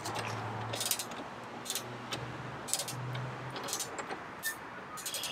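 Ratchet wrench being worked back and forth on bolts, a short burst of ratchet clicks on each back-swing about once a second, as the bolts are run down to seat before torquing.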